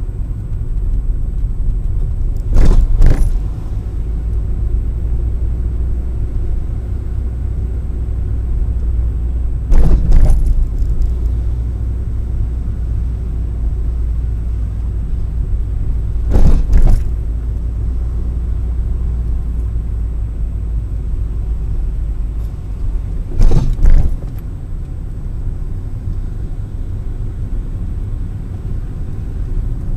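Car road rumble heard through a windshield dashcam's microphone inside the cabin, with four loud double thumps spaced several seconds apart. The rumble eases after the last thump, about three-quarters of the way through.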